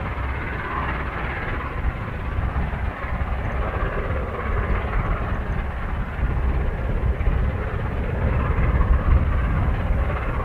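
An LNER A4 Pacific three-cylinder steam locomotive working hard up a bank, its exhaust heard as a steady roar with no separate beats over a heavy low rumble.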